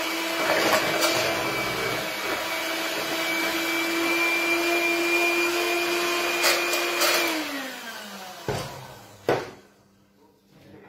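Electric hand mixer whipping egg whites to stiff peaks in a plastic bowl, its motor running at a steady pitch, then switched off about seven seconds in and winding down. Two sharp knocks follow shortly after.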